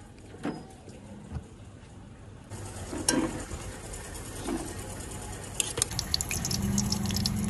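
A slotted steel spoon scraping and clinking against a steel pot as solid ghee is spooned in and starts to melt over a lit gas burner. Two faint clicks come at first, as the burner is set. From about two and a half seconds in there is a steady hiss, with bursts of clinks and crackles near the end.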